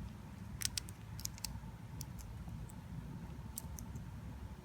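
Small, sharp clicks of die-cast toy car parts being handled as wheels and axles are pressed back into a Hot Wheels chassis: a few scattered ticks, most in the first second and a half, over a low steady hum.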